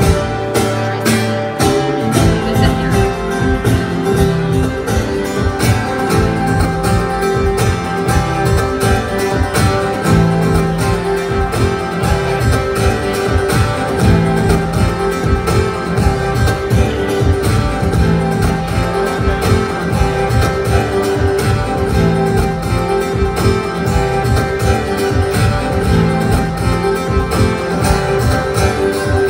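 Amplified acoustic guitar strummed in a steady rhythm, an instrumental passage of a live song with no vocals.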